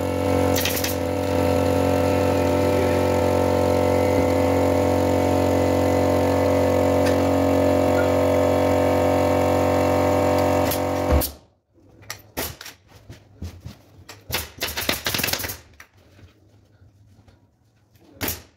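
Air compressor supplying a pneumatic upholstery staple gun runs with a steady hum, then cuts out suddenly about eleven seconds in, likely on reaching pressure. After that there are only scattered light knocks.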